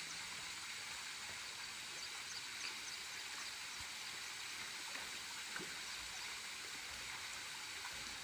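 Faint, steady outdoor background hiss, with a few faint high chirps scattered through it and a soft knock about five and a half seconds in.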